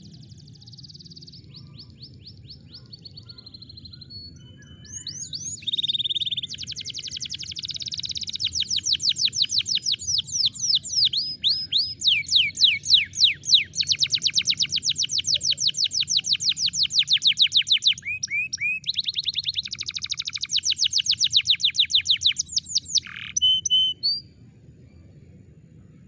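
Domestic canary singing a fast song of rapid trills, each run repeating one note many times a second before switching to a new pitch. Soft at first, it grows loud about five seconds in and stops shortly before the end.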